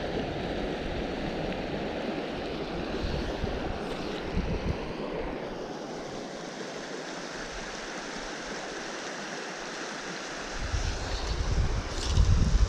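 Rushing mountain stream, a steady hiss of flowing water, with wind buffeting the microphone at the start and again from about ten seconds in.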